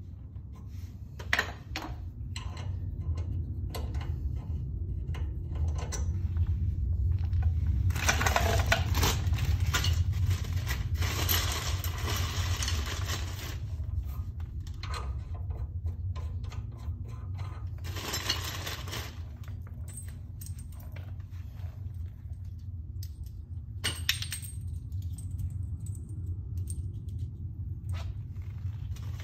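Metal clinking and rattling of ARP wheel studs being handled and fitted into a front wheel hub flange, with a sharp clink about a second in and longer stretches of rattling partway through.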